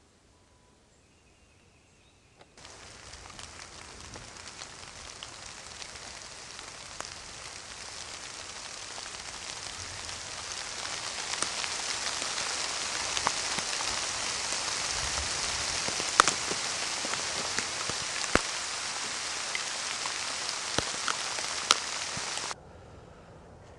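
Rain falling hard, an even hiss with sharp drops tapping close by, growing steadily louder; it starts abruptly a couple of seconds in and cuts off suddenly near the end.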